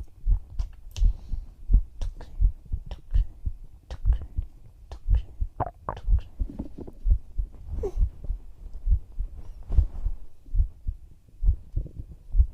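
Human heartbeat heard close up, its low thumps repeating in a steady, even rhythm.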